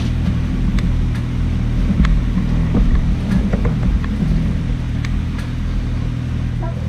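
Motorcycle engine running at a steady pace while riding, heard as a low, even rumble mixed with wind noise on a bike-mounted camera's microphone.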